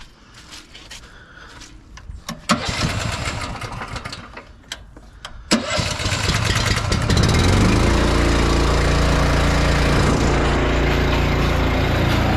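Small gasoline engine starting up after a couple of tries, catching about five and a half seconds in and then running steadily.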